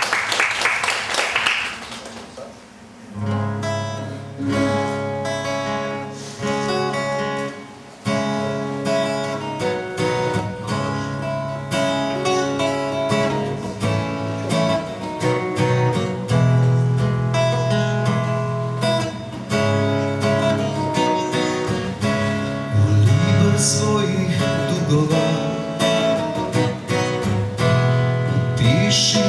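Jumbo cutaway acoustic guitar played solo, chords picked in a steady repeating pattern that starts about three seconds in after a short noisy burst.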